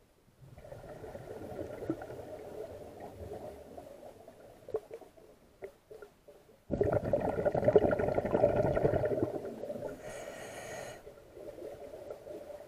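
Scuba diver breathing through a regulator underwater: a moderate breathing sound first, then a loud rush of exhaled bubbles starting about seven seconds in and lasting about four seconds.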